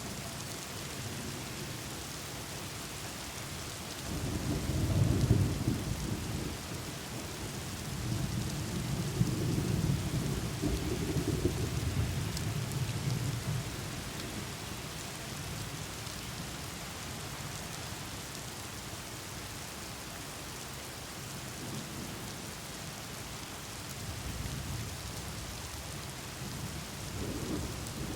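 Thunderstorm: steady rain hissing, with rolling thunder rumbles. One swells about four seconds in, a longer one rolls through the middle, and another begins near the end.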